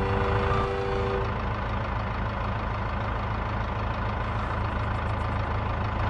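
Steady idling sound of a truck engine, a low even hum. The last held notes of the music die away within about the first second.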